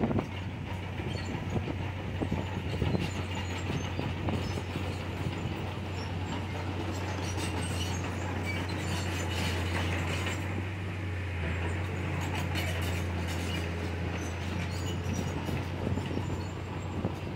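Komatsu D31PX crawler bulldozer working, its diesel engine running steadily under the clatter and squeal of its steel tracks.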